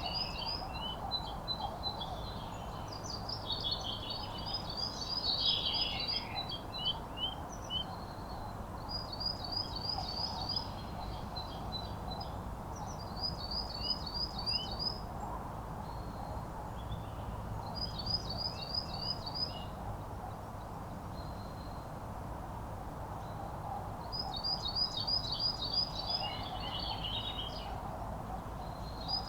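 A songbird repeats the same short song phrase every few seconds: a quick run of high repeated notes, then a few lower ones. A steady low background rumble runs beneath it.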